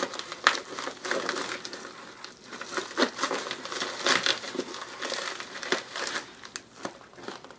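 A white plastic mailer bag crinkling as scissors cut it open, with irregular sharp snips and rustles.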